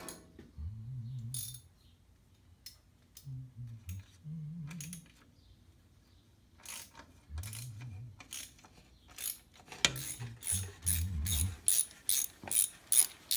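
Ratchet wrench clicking: scattered clicks and handling knocks at first, then a steady run of about three clicks a second for the last few seconds.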